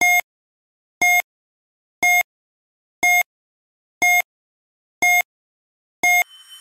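Quiz countdown timer sound effect: a short electronic beep once a second, seven in a row, with silence between. A faint swelling sound begins just before the end.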